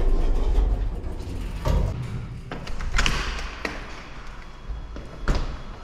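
Lift doors sliding open with a low rumble, then a mountain bike wheeled out of the lift with a few sharp knocks and clatters. The loudest knock comes near the end.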